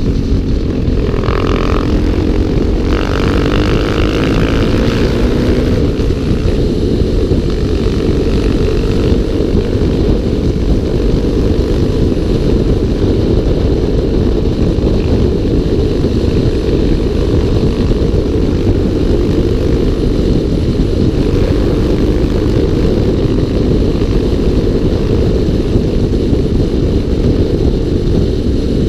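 Single-cylinder motorcycle engines running at speed under heavy wind rumble on the microphone. The engine pitch rises and falls in the first few seconds and again later on.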